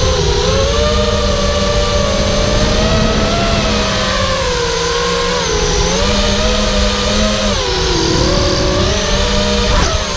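Brushless motors and propellers of a 210-size FPV racing quadcopter, heard from the camera on board: a steady whine whose pitch dips and rises as the throttle changes, over a rush of air. A short knock near the end.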